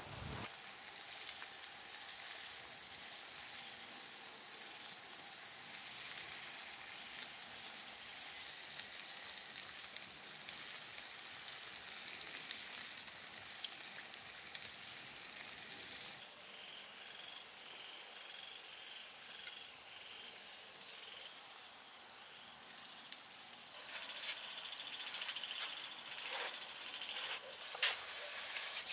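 Pork and bell pepper skewers sizzling and crackling on a wire grill, a dense steady hiss. After about sixteen seconds the sizzle cuts out, leaving crickets trilling, and near the end rustling and handling noises.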